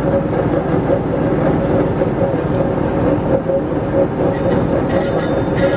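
Poręba metal lathe running steadily, its gearing giving a constant whine over a dense mechanical rumble.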